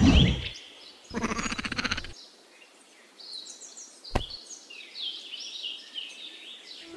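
Birds chirping over a faint steady background, with added sound effects: a short loud sweep at the start, a rapidly pulsing buzz lasting about a second, and a single sharp click about four seconds in.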